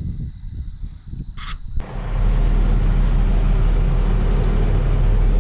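Quieter, uneven rumble with a brief hiss, then about two seconds in a vehicle engine running steadily and close, a loud, even low rumble.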